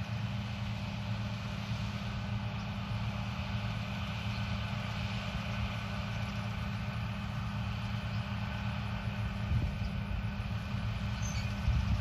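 Tractor engine running steadily under load, a low even drone.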